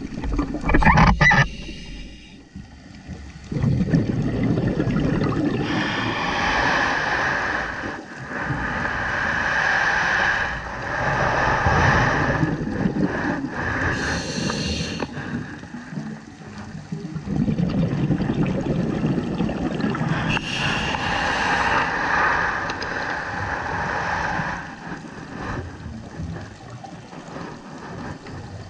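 Scuba diver's breathing through a regulator, heard underwater: hissing breaths and bubbling, gurgling exhalations that swell and fade in long spells several seconds apart.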